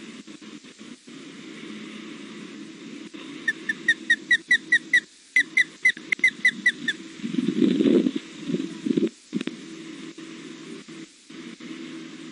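Juvenile osprey giving its food-begging call: a rapid run of short, high, whistled chirps, about five a second for roughly three and a half seconds. A low rumbling burst lasting a second or two follows and is the loudest sound, over a steady low background hum.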